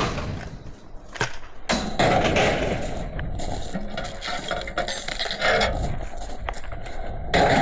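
Rubbish being shifted about in a skip: scattered clinks and knocks over a steady rushing noise.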